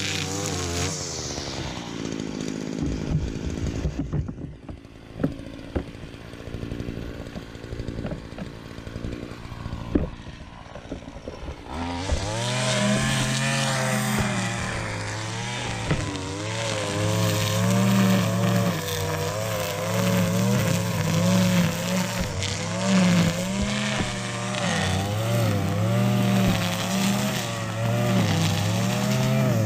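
Gas string trimmer's engine, loud. It runs low and rough with scattered clicks for about the first ten seconds, then revs up about twelve seconds in and runs at high speed, its pitch wavering as the line cuts through the grass.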